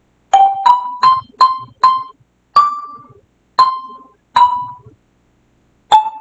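Background music: a piano-like keyboard plays single notes one after another in a slow melody, about nine notes, each struck sharply and fading away. The notes climb a little over the first two seconds and then step back down.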